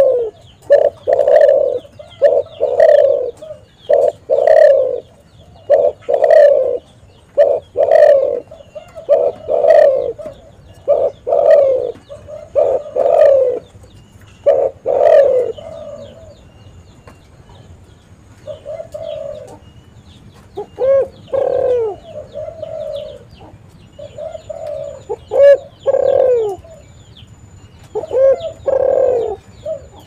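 Spotted dove cooing, a run of repeated coos about one a second. After about fifteen seconds there is a short lull, then the cooing resumes.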